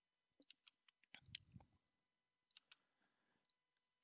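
Faint computer keyboard typing: scattered key clicks in small groups, with a soft low thump about a second and a half in.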